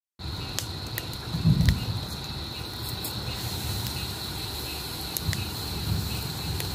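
Crickets chirring steadily, with scattered sharp crackles and pops from a burning hollow tree stump throwing sparks. A brief low rumble about a second and a half in is the loudest moment.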